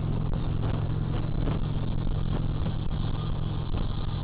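Harley-Davidson Street Glide's V-twin engine running steadily at cruising speed, mixed with wind and road noise.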